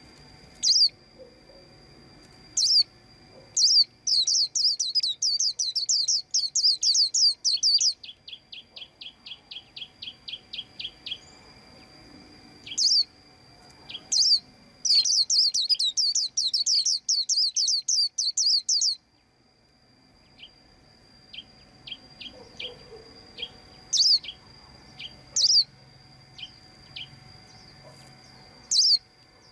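White-eye chirping: single sharp chirps and two long, fast trilled runs of notes, with softer rapid ticking calls between them.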